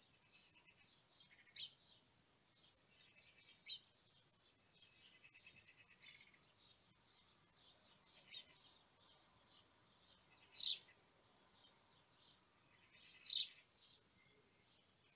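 Small birds chirping and twittering, with quick high notes throughout and a louder sharp call every two to three seconds, the strongest ones about two-thirds of the way through.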